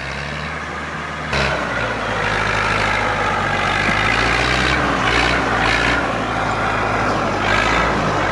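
Heavy machinery engine running steadily; about a second in the sound jumps louder and changes to a different, busier machine noise that carries on.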